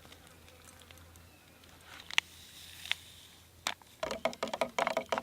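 A few sharp clicks of metal cookware being handled, then, about four seconds in, a sudden fast crackling as ground meat and cauliflower start sizzling in a hot Trangia frying pan.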